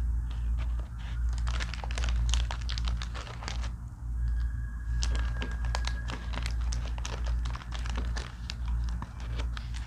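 Plastic wrapper of an Ülker Halley chocolate snack crinkling and crackling as it is handled and opened, in dense irregular crackles with a brief pause midway. A steady low hum runs underneath.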